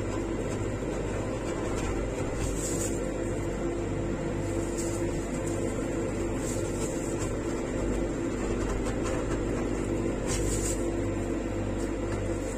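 Steady mechanical hum of a rolled-ice-cream machine's refrigerated cold plate, its compressor and fan running, with a few brief scrapes of a steel spatula on the frozen plate.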